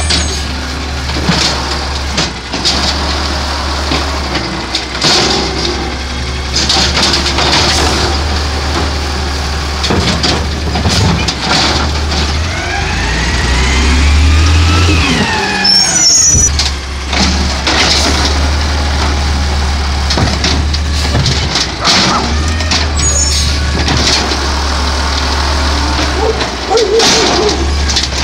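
Diesel engine of an automated side-loading garbage truck running, with scattered clanks. About halfway through, the engine revs up and back down as the truck pulls forward, and its brakes squeal briefly as it stops.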